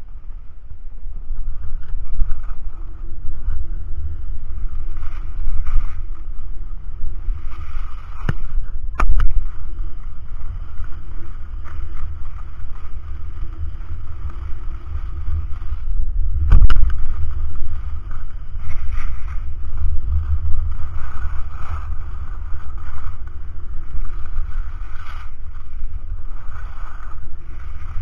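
Wind buffeting the action camera's microphone on a fast ski descent: a steady low rumble with the hiss of skis scraping over snow, and a few sharp knocks, the loudest about sixteen seconds in.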